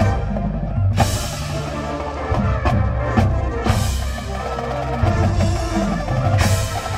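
Marching band playing its field show music, with drums and bass drums to the fore. Loud percussion crashes come about a second in, again around four seconds, and near the end.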